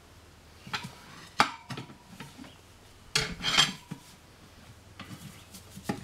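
Metal tire irons clinking and scraping against a spoked motorcycle wheel rim as the tire bead is levered over it: scattered clicks, one sharp ringing clink about a second and a half in, and a longer scraping rattle a little after three seconds.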